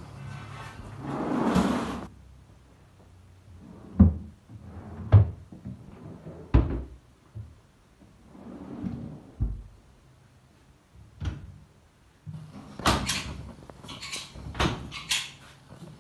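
PVC-sheet kitchen cabinet drawers and doors being opened and shut. A drawer slides about a second in, then there are sharp knocks as they close every second or two, and a quick run of clicks and knocks over the last few seconds.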